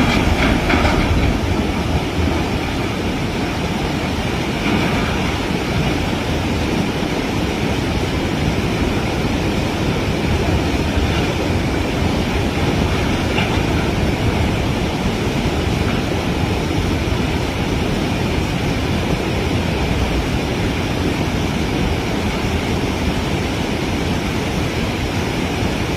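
Loud, steady rush of floodwater pouring through the broken flood gates of a river barrage, an even roar that holds unchanged throughout.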